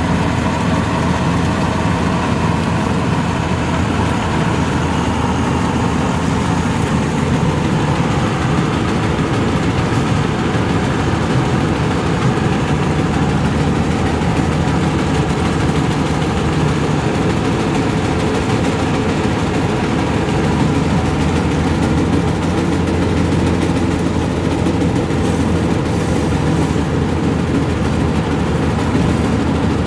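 Maxxi Bimo NDR102L combine harvester running steadily, an unbroken loud engine and machinery drone that keeps the same level throughout.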